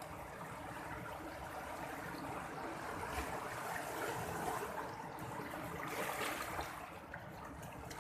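Sea water washing in small waves, a steady rush of water that swells louder about three seconds in and again around six seconds.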